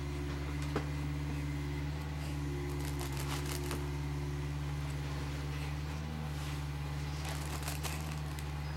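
A steady low hum throughout, with faint crinkling rustles of a foil balloon brushed by a baby's hand, about three seconds in and again near the end.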